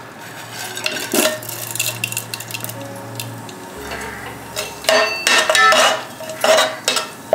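Whole spices dropped into hot ghee and oil in a steel pot about a second in, sizzling lightly. Near the end a metal spoon stirs them, clattering and scraping against the pot in two bursts.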